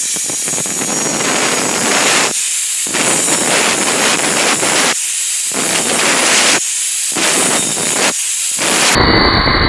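Handheld angle grinder with a cutting disc slicing through stainless steel tube: a loud, continuous grinding hiss that briefly loses its body four times as the disc eases in the cut. Near the end it cuts abruptly to a different, steadier noise.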